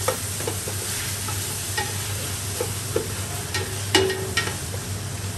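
Wooden spoon stirring onion and ham frying in oil in a stainless steel stockpot, with a steady sizzle. The spoon knocks against the pot now and then, loudest about four seconds in, where it gives a brief metallic ring.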